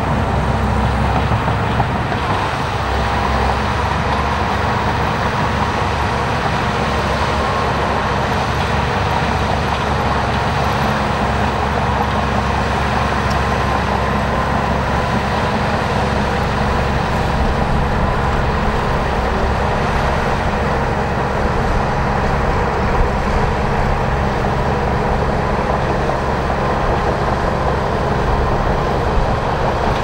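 Shantui crawler bulldozer's diesel engine running steadily under load as it pushes a blade-full of earth, with the rattle of its steel tracks.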